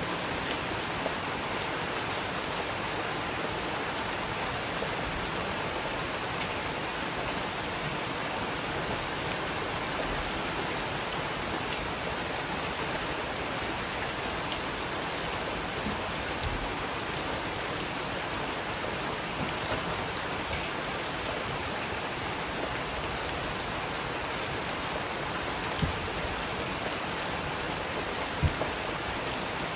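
Steady, even rain falling, with a few sharp pops of a wood fire in the fireplace standing out now and then.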